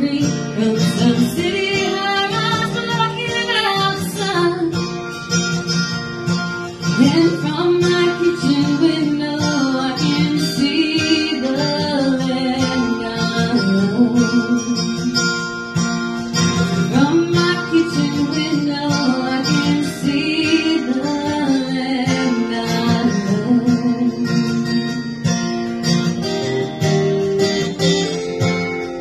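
A woman sings a song to her own strummed acoustic guitar. Near the end her voice drops out and the guitar plays on alone.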